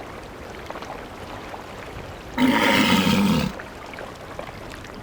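Male Atlantic walrus sleeping in the sea gives one loud snore, about a second long, midway through, over a steady wash of sea water.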